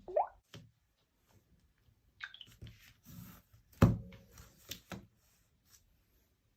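Scattered taps, clicks and rustles of smartphones being handled, with two short chirp-like glides and one loud knock about four seconds in that rings on briefly.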